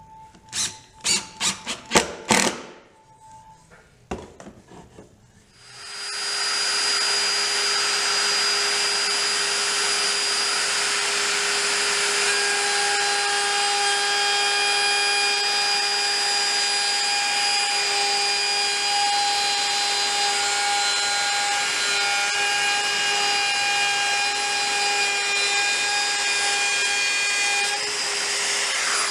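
A cordless impact driver runs in a few short bursts, driving screws, for the first couple of seconds. About five seconds in an electric plunge router spins up and runs steadily, cutting a block of iroko hardwood to a template.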